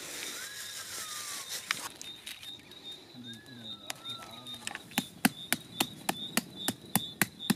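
A stone striking a metal tent peg, driving it into hard ground: a run of sharp knocks about three a second, starting about five seconds in.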